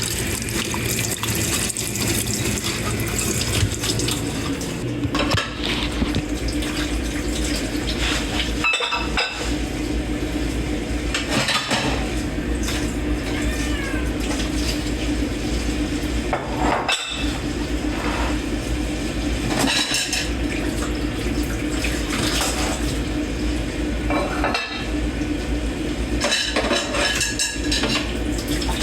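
Dishes being washed by hand in a kitchen sink: water running steadily from the tap, with plates, pots and cutlery clinking and clattering against each other over and over.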